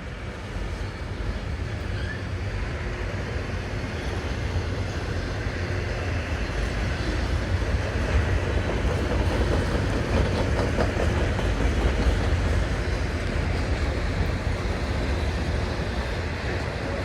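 Freight train rolling slowly past, its railcars rumbling on the rails, growing gradually louder through the first half.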